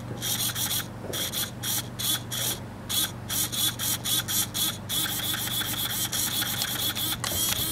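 New 25 kg throttle/brake servo on a nitro RC truck whirring in short repeated bursts as it is driven back and forth from the transmitter, then buzzing more continuously over the last few seconds. It is the bench test of a replacement servo, and the servo responds and works.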